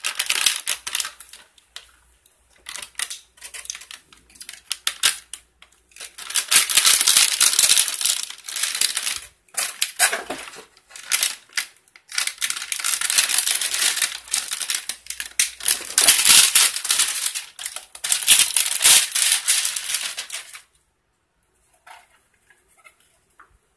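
Plastic packaging crinkling and rustling in long bursts as a computer power supply's cable bundle is handled and unwrapped, with scattered clicks and knocks of handling before it; it stops about twenty seconds in.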